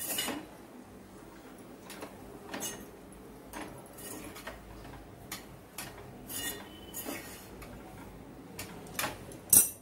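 Spatula stirring a stiff, freshly cooked barnyard millet flour dough in a metal pot, knocking and scraping against the pot's sides in irregular taps, the loudest one near the end.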